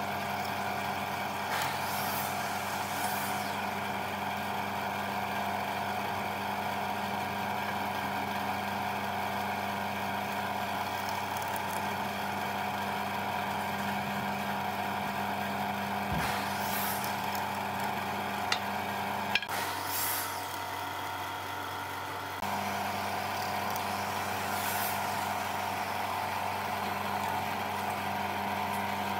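Drill press motor running with a steady hum, its bit boring into a wooden rail, with a few short bursts of hiss as it cuts.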